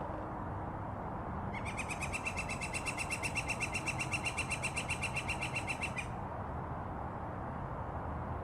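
A bird calling in a rapid, evenly spaced run of high chirps for about four seconds, starting a second and a half in, over a steady background hiss.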